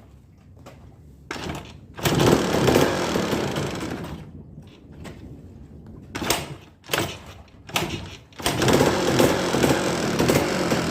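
Yamaha DT200 two-stroke single-cylinder motorcycle engine coming to life about two seconds in and dying away, a few short bursts, then running steadily from about eight seconds in with a loud knocking from inside the engine. The owner says it could be a loose crankshaft bearing or play in the engine case, with play at the magneto.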